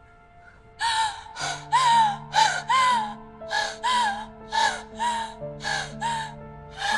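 A woman sobbing in about a dozen short, high-pitched gasping cries, starting about a second in, over soft sustained background music.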